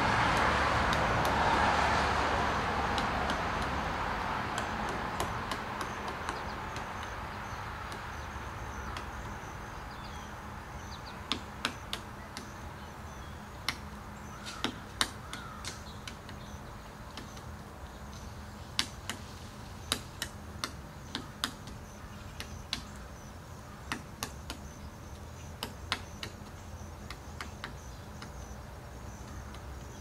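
Pileated woodpecker pecking at a black walnut limb: irregular sharp taps, singly and in short clusters, starting about ten seconds in. Before that, the sound of a passing vehicle fades away, and a faint high insect trill runs underneath.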